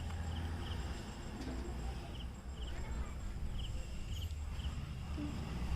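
Short high-pitched insect chirps in quick pairs, repeating every half second to a second, over a low steady rumble.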